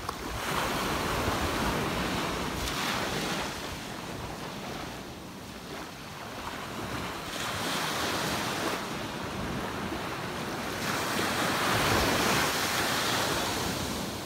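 Small ocean waves breaking and washing up a sand beach, the surf swelling and easing in several surges, the loudest near the end.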